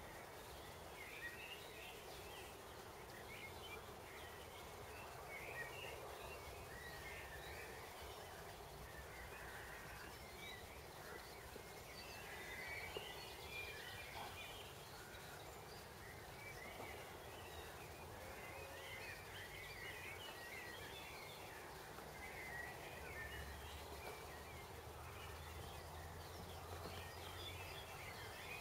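Faint garden birdsong: small birds chirping and twittering on and off throughout, over a steady low background hum.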